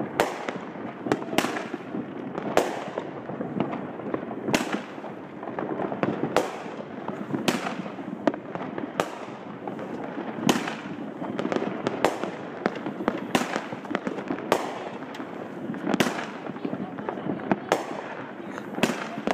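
Fireworks going off: sharp bangs about once a second at uneven intervals, over a constant crackling and popping from many launches at once.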